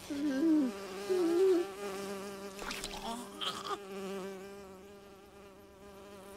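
Steady insect-like buzzing drone with a slightly wavering pitch, fading a little toward the end. A wobbling higher sound rides over it in the first second and a half, and there are a couple of short scratchy bursts around the middle.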